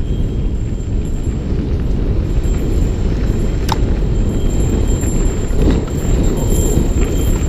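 Mountain bike descending a dirt trail at speed, heard from a handlebar-mounted camera: a steady, loud wind rumble on the microphone with rattle from the bike over the ground, and a single sharp tick about halfway.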